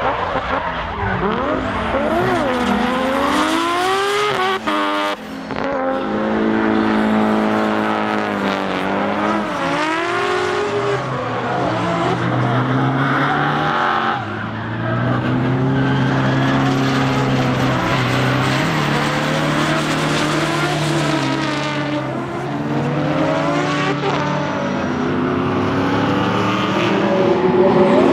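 Turbocharged drift cars' engines revving hard, rising and falling as the drivers work the throttle, more than one car at once, over the screech of tyres spinning sideways.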